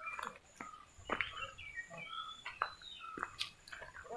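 Small birds chirping with short, quick rising and falling calls and a faint repeated high note, over scattered sharp crackles and snaps of footsteps on dry coconut fronds and stones.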